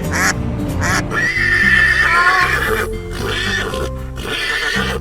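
A horse whinnying, a high wavering call from about a second in, over cheerful children's background music.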